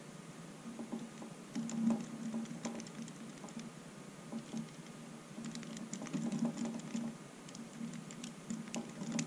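Light, irregular clicking and tapping from hands working a wire splice with a small hand tool, over a faint intermittent hum.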